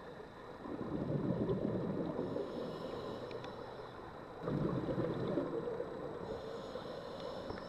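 A scuba diver's regulator exhaust bubbles heard underwater: two rumbling, gurgling exhalations, the first starting under a second in and the second just past the middle, each lasting one to two seconds.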